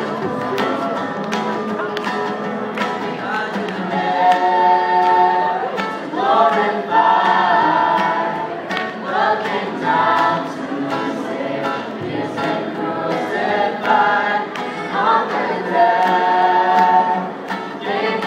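Live band performance: several voices singing together, holding long notes, over a steady beat.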